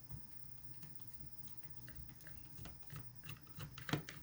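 Screwdriver backing small screws out of a plastic Bluetooth speaker casing: faint scattered clicks and light scraping, with a few louder clicks near the end.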